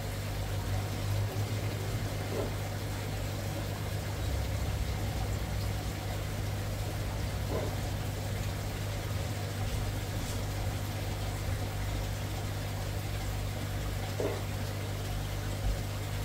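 Steady low electric hum of the aquaponics tank's pump, with water running and splashing in the fish tank.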